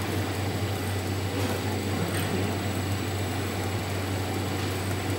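Automatic pipe welding machine arc-welding a steel pipe turning on its rollers: a steady welding noise over a steady low electrical hum.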